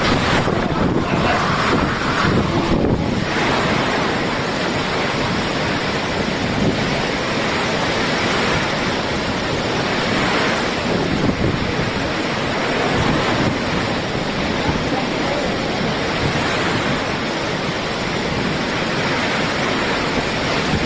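Hurricane storm noise: a loud, steady rush of wind and surging water, with wind buffeting the microphone.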